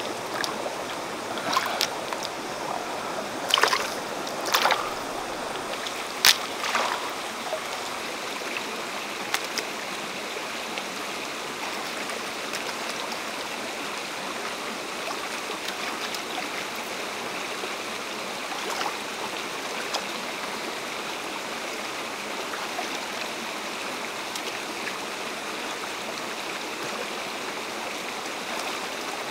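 Shallow stream water flowing and trickling steadily over rocks. A few short sharp splashes stand out in the first seven seconds as hands work in the water, picking shells from the streambed.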